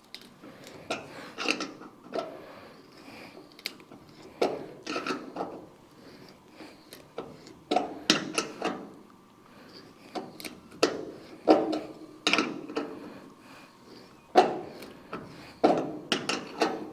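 A Helicoil thread-repair tap being turned by hand into a drilled hole, cutting new threads in metal: irregular bursts of clicking and grinding every second or so as the tap is worked in short turns.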